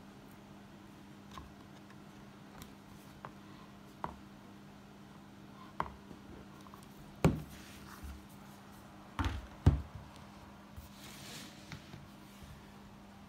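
Board book being handled: light taps as the stiff cardboard pages are turned. Then a few louder thumps as the books are closed and set down on a wooden table, and a short scrape of a book sliding across it.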